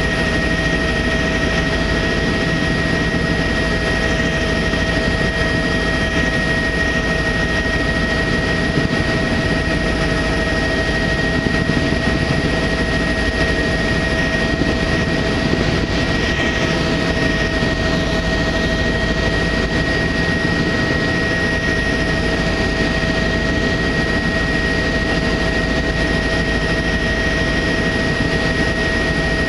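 Tour helicopter in flight, heard from on board: a steady engine and rotor drone with constant high whining tones.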